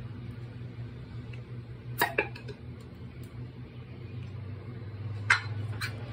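A few sharp metallic clinks of a stainless steel mixer-grinder jar being handled on its base: two about two seconds in and two more near the end, over a steady low hum.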